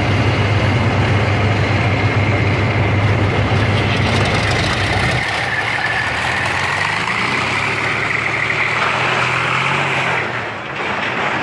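T-34-85 tank's V-12 diesel engine running hard under load, a steady heavy drone with a whine above it. About halfway through the pitch starts to shift up and down as it climbs a trailer ramp.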